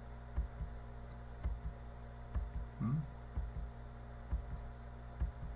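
Steady low electrical hum in the recording, broken by about eight soft low thumps at irregular intervals and one brief low vocal sound about three seconds in.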